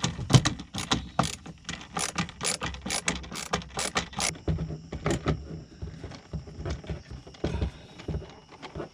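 Hand screwdriver with an Allen bit driving self-tapping screws into a plastic storage box, with a quick run of ratchet-like clicks at about three or four a second. About four seconds in, the clicks thin out to a few scattered ones.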